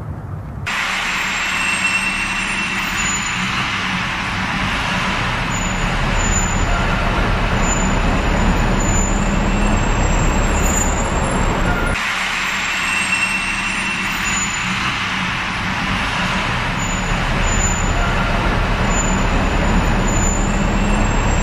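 Steady road-traffic noise, the roar of passing cars and trucks inside a tiled road tunnel. It starts abruptly just under a second in.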